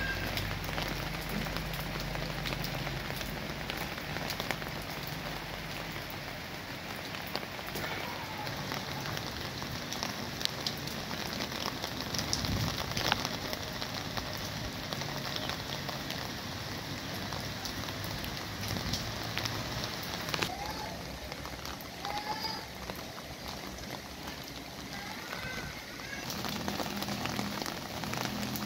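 Steady rain falling on foliage, a continuous hiss dotted with many separate drop hits.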